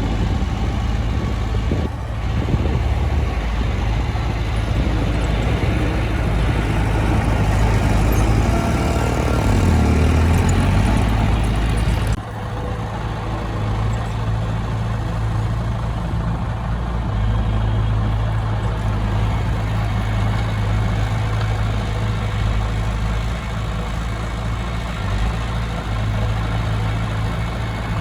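Heavy diesel engine of construction machinery running steadily, rising in pitch for a couple of seconds around ten seconds in, then dropping abruptly in level about twelve seconds in.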